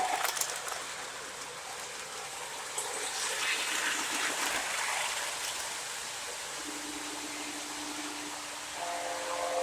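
Lionel O gauge model train running with a steady hiss. A low steady tone comes in about two-thirds of the way through and is joined by higher tones near the end, a model train's sound-system whistle.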